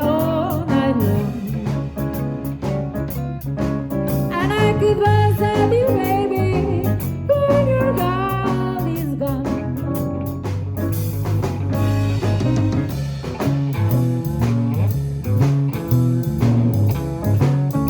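Live band playing a jazz-blues song with guitar, piano, bass and drum kit. A steady bass and drum groove runs under it, and a lead melody bends in pitch in the middle.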